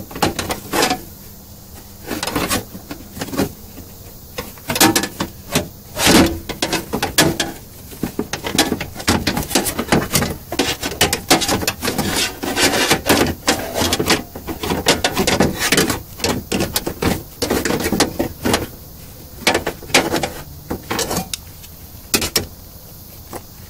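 Car window regulator and motor assembly clanking and scraping against the sheet-metal inside of a Suzuki Forenza door as it is worked out through the access slot. A long run of irregular metallic knocks, clicks and rattles, densest in the middle.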